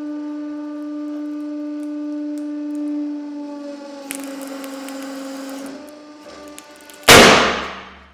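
150-ton hydraulic press's pump running with a steady whine whose pitch dips slightly near the middle as the load builds, with a crackling hiss from about four seconds in. About seven seconds in the compressed roll of string bursts with a loud, sudden bang that fades over about a second.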